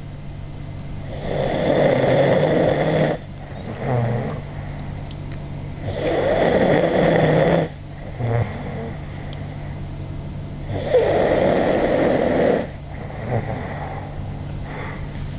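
A man snoring in sleep: three long, loud snores about five seconds apart, each followed by a shorter, softer sound, over a steady low hum.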